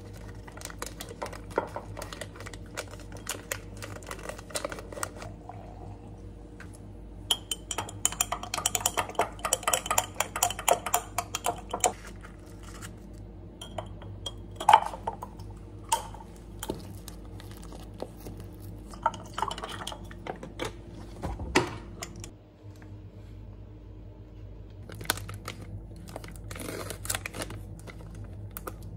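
Kitchen handling sounds on a stone countertop: a glass jar and utensils clinking and knocking while iced coffee is made. About halfway through, ice cubes pushed from a silicone tray drop clinking into the glass jar. Near the end comes the crinkle of plastic film being peeled off a plastic food tray, all over a steady low hum.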